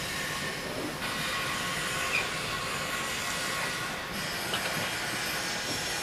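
Hand-cranked Durston jeweller's rolling mill being turned, its gears and steel rollers grinding steadily as metal stock is squeezed through, with a few small clicks.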